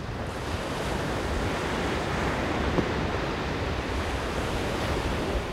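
Ocean surf washing and breaking, with wind rumbling on the microphone; the wash swells over the first couple of seconds and then holds steady.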